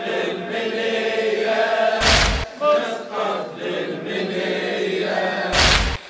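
A congregation of mourners chanting the refrain of a Shia latmiya lament in unison, with two heavy chest-beating strikes in unison about three and a half seconds apart.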